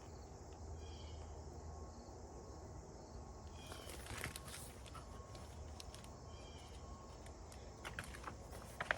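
Faint outdoor ambience with a bird chirping briefly three times, and a few soft taps or rustles about four seconds in and near the end.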